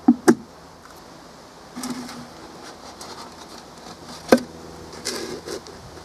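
Handling noise from a cardboard and plywood form: two sharp knocks right at the start and another a little past four seconds in, with rustling and scraping of the cardboard in between.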